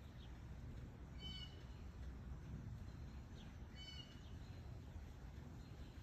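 Light rain falling steadily, with two brief, high-pitched bird calls, one about a second in and another a little before four seconds.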